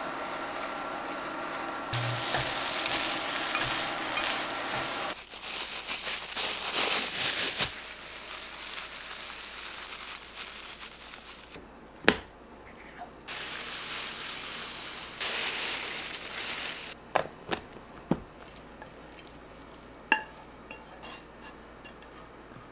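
Kitchen food-prep sounds: chopsticks stirring and tossing sauce-coated food in a nonstick pan, with rustling and scraping. There is a sharp clack about halfway through as a jar lid is pressed shut, then a few lighter knocks and clinks. Near the end a spatula scrapes the pan.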